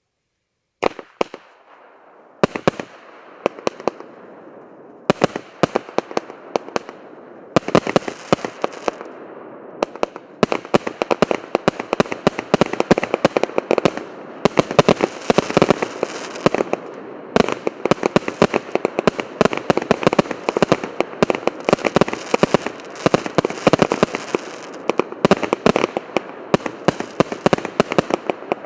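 A 100-shot, 1-inch fireworks cake firing: sharp shot reports one after another, starting about a second in, sparse at first and quickening into a dense barrage from about eight seconds in, with a continuous hiss between the shots.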